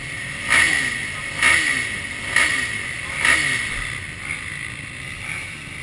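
Motocross bike engine at idle, its throttle blipped four times about once a second, each rev rising sharply and dropping back.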